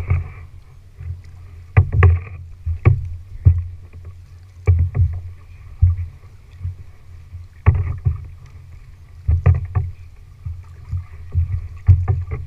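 Kayak paddling: double-bladed paddles dipping and pulling through the water stroke after stroke, giving sharp, irregular splashes and knocks about once a second over a low steady rumble.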